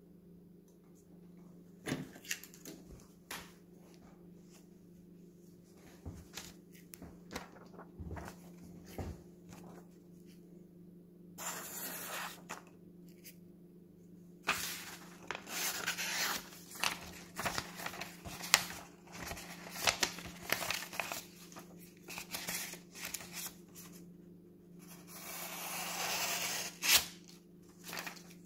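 Kitchen knife slicing through sheets of paper to test a freshly sharpened edge: repeated rustling cuts and paper handling, with scattered clicks and knocks between them. A low steady hum runs underneath.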